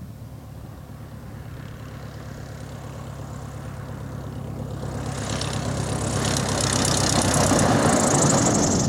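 Single-engine biplane's piston engine and propeller running steadily, growing louder as the plane rolls toward and past the microphone along the runway. It is loudest about seven to eight seconds in, with a high whine that drops slightly in pitch as it passes.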